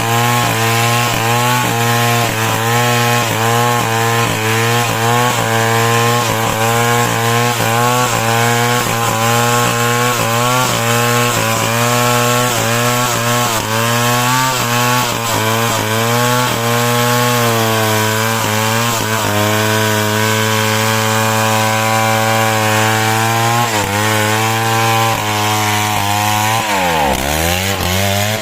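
Two-stroke chainsaw running at high revs while cutting lumber. Its note sags under load and recovers about twice a second, and near the end the engine drops off and revs back up a couple of times.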